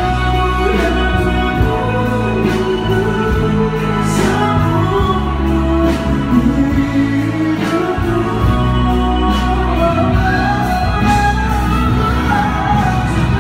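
A man singing a slow song into a microphone over a band accompaniment: bass, held chords and a light drum hit about every one and a half to two seconds.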